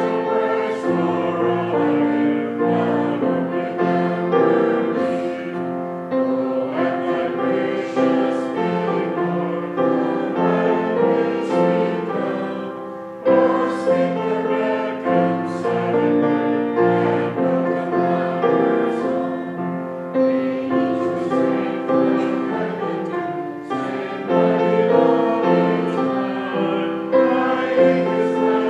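Congregation singing a hymn with piano accompaniment.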